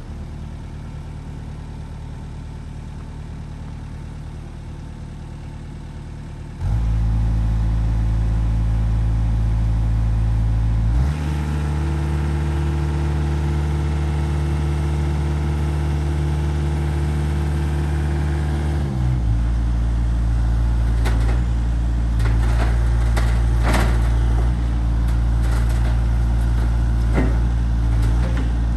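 Komatsu PC80MR mini excavator's diesel engine running just after start-up, steady at first, then stepping up in speed about six seconds in and again around eleven seconds, before dropping back near nineteen seconds. Over the running engine in the last third come scattered metallic clanks and knocks.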